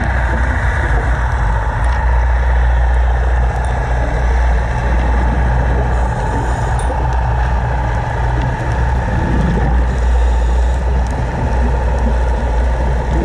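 Steady low rumble and hiss of underwater noise picked up by a camera during a scuba dive.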